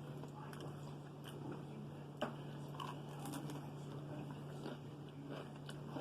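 A person chewing and biting food close to the microphone, with small wet smacks and clicks and one sharper click about two seconds in, over a steady low hum.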